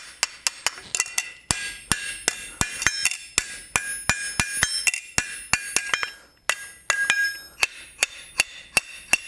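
Blacksmith's hand hammer striking hot steel flat stock on an anvil in a steady rhythm, about three blows a second, each blow leaving a high metallic ring, with a brief pause about six seconds in. The blows are forging the split branches of the bar back into a T-shape.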